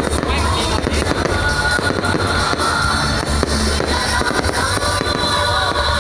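Fireworks bursting and crackling in quick succession over loud music playing through the square's speakers.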